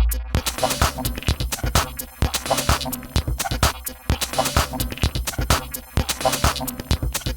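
Minimal techno track with drum machine in a breakdown: the kick drum drops out right at the start, leaving busy clicking percussion over steady synth tones.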